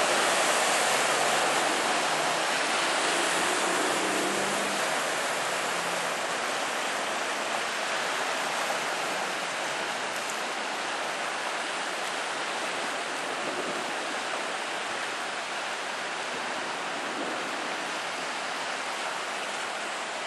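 Steady hiss of floodwater splashing and spraying from the wheels of vehicles driving through a flooded street. A semi-truck's engine hum is heard for the first few seconds and fades away.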